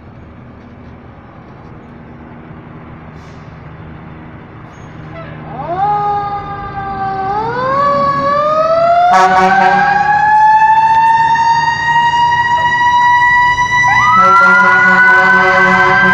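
Fire engine's siren winding up in rising steps about five seconds in, then holding a loud, steady wail. From about nine seconds, and again louder near the end, it is joined by a second high tone and steady blasts of its air horn.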